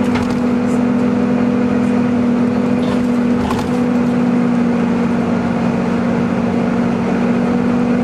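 Volvo B9TL double-decker bus engine heard from inside the saloon, running with a steady vacuum-cleaner-like 'hoover' whine that holds one pitch as the bus drives along.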